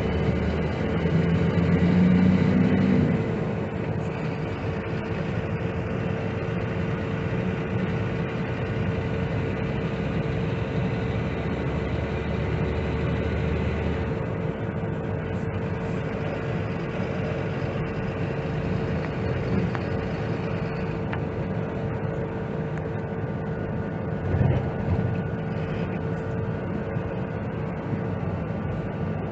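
Dump truck driving on the road with its engine running steadily under a constant whine, sounding good after a gear-shift repair. The engine note is louder for a moment about two seconds in, the low drone changes about halfway through, and there is one brief louder bump near the end.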